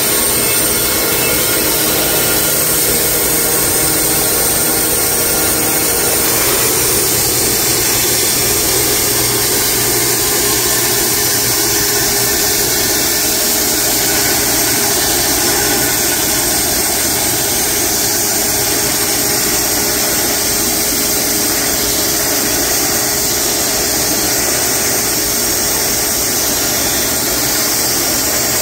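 Wood-Mizer LX250 portable bandsaw mill running, its band blade cutting lengthwise through a large horse chestnut log: a loud, steady sawing and motor noise throughout.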